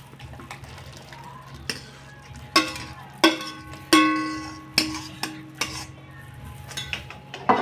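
A metal ladle scraping and clanking against a wok as soup is ladled out. There are about six sharp clanks, the loudest near the middle, each ringing briefly, and one rings on for about a second.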